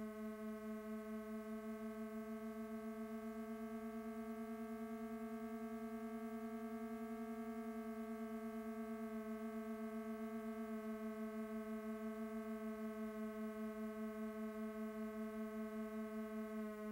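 Electronic drone from the film's score: a sustained synthesized tone near 220 Hz with a stack of overtones above it. It pulses steadily in loudness, the beat quickening through the middle and slowing again near the end.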